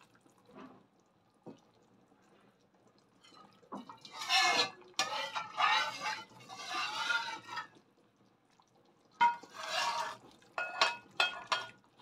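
Beef broth ladled and poured, splashing in several bursts, with a few short metallic clinks of the ladle against the pan near the end.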